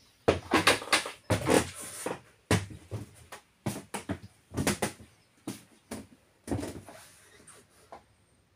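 Irregular bumps, knocks and rustling handling noise, the sound of a hand-held camera being carried and moved about a yacht's wooden cabin. The bumps die away near the end.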